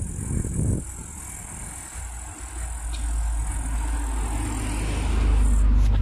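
A low, steady engine hum that grows louder from about four seconds in, over a constant high hiss.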